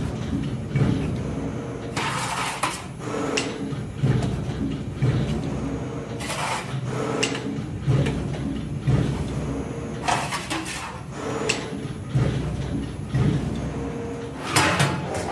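RONGWIN RWA05-1400PC1 full-servo CNC panel bender running through a bending cycle: a steady servo hum while the blade folds the edges of a sheet-metal panel, broken by a short clatter every one to three seconds as the blade and sheet holder strike and release the panel.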